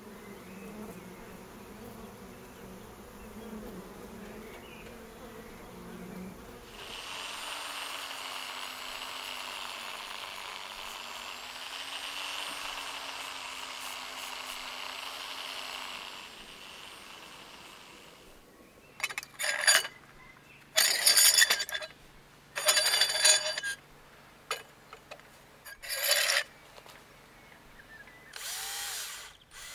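First a swarm of honeybees buzzing, then an angle grinder running steadily with a high whine for several seconds. After that a power drill runs in about five short, loud bursts, with one more near the end.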